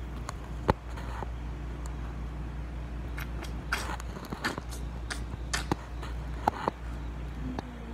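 Handling noise from a phone being set in place as a camera: a sharp knock about a second in, then a run of short clicks, taps and rubs, over a steady low hum.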